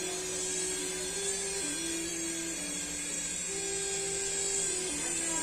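Small toy R/C helicopter's electric rotor motors whining steadily. Held lower tones shift pitch in steps underneath.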